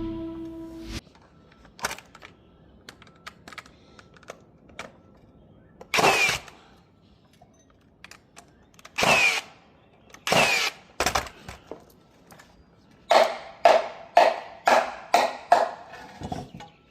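Tool and handling sounds from assembling wooden deck steps: scattered clicks and knocks, three short rasping bursts, then a run of about a dozen quick strokes near the end. The tail of background music fades out in the first second.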